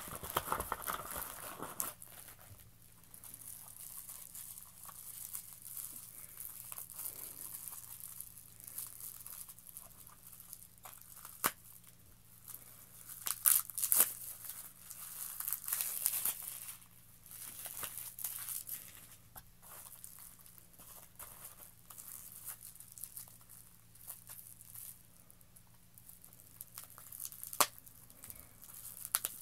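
Plastic packing wrap crinkling and tearing as small wrapped items are handled and pulled out of a cardboard box. It comes in uneven bursts with a few sharp clicks, loudest about halfway through.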